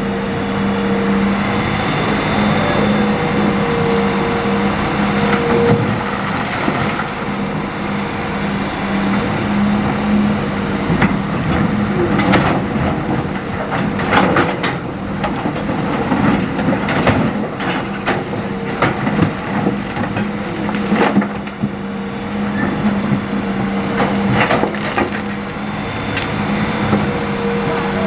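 Hitachi excavator's diesel engine running steadily with a constant droning tone, while river stones clatter and knock against the steel bucket and truck bed in a dense run of sharp impacts around the middle.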